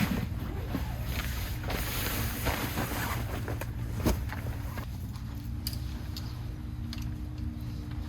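Wind rumbling on the microphone outdoors, with a few sharp clicks; a steady low hum comes in about five seconds in.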